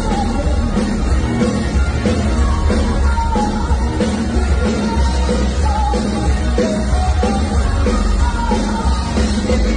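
Live rock band playing with a female singer singing into a microphone, recorded from the audience on a phone.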